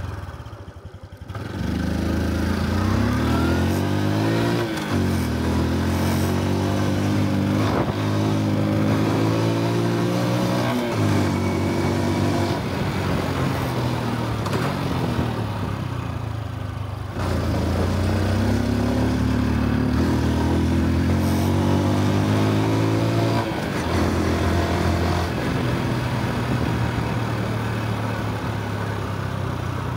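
Honda Super Cub C125's single-cylinder four-stroke engine and exhaust on the move: it pulls away, its pitch climbing and dropping back at each of three gear changes. It eases off about halfway through, then accelerates again through two more shifts and settles to a steady cruise.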